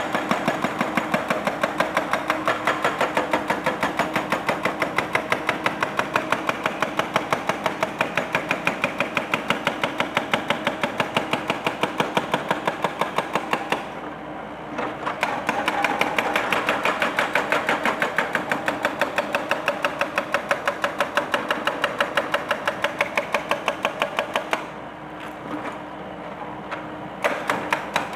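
Excavator-mounted hydraulic breaker hammering concrete in a fast, steady rhythm of about four to five blows a second. It stops briefly about halfway through and again near the end, then starts up again.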